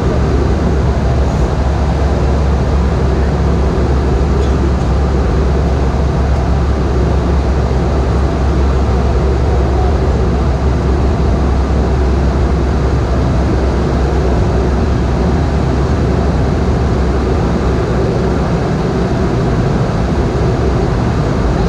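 Steady, loud cabin noise inside a Boeing 717 airliner in flight: an unbroken drone from its engines and the airflow over the fuselage, heaviest in the deep bass.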